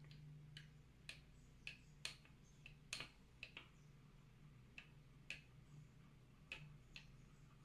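A metal spoon stirring coffee in a ceramic cup, clinking faintly against the inside of the cup about a dozen times at irregular intervals.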